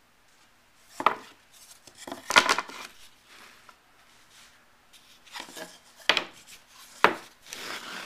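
Stiff painted cards being handled and set down: a few sharp taps, about a second in, twice around two and a half seconds, and again near six and seven seconds, with rubbing and scraping between them.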